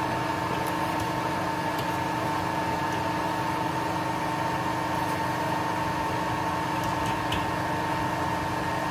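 A steady machine hum with a few fixed tones, at an even level throughout; no distinct sound from the hand tapping is heard above it.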